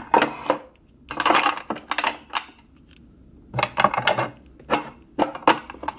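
Small skincare bottles clinking and rattling against each other and the drawer as they are handled and set in place, in a few short bursts with sharp clicks.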